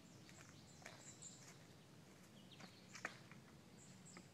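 Near silence with a faint, steady low hum, described as a low humming or vibration whose source is unknown. Small bird chirps sound high above it, with a soft click about three seconds in.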